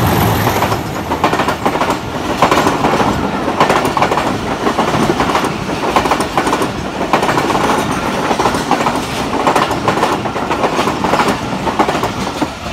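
Two Pakistan Railways passenger trains passing each other at speed on adjacent tracks, heard from an open coach door: a loud, continuous rush and rattle of the passing coaches, with wheels clattering over the rail joints.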